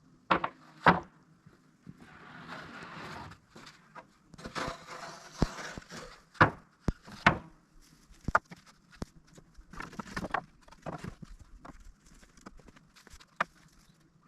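Freshly milled wooden boards being handled and stacked: irregular sharp wooden knocks, the loudest two close together right at the start, with short scraping slides in between.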